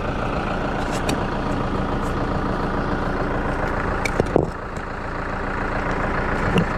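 Tractor engine running steadily while working its front loader; its note dips briefly about four seconds in and builds back up.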